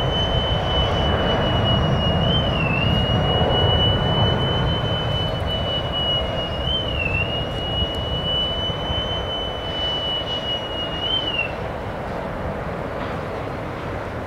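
Distant jet engines of a twin-engine widebody airliner at takeoff thrust: a steady rumbling roar as the jet rolls down the runway and lifts off. A thin, steady high-pitched whine runs alongside it, dipping briefly about every four seconds, and stops about three seconds before the end.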